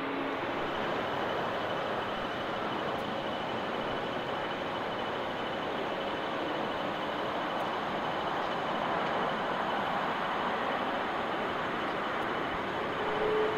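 Jet airliner engines running: a steady roar with a faint high whine.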